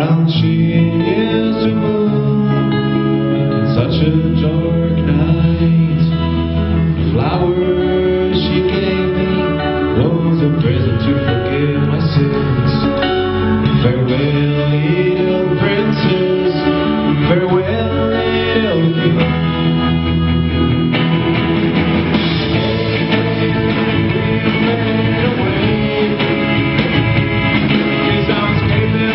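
Live band playing a song, electric guitars and keyboard with a man singing. About 21 seconds in the band's sound gets fuller and brighter.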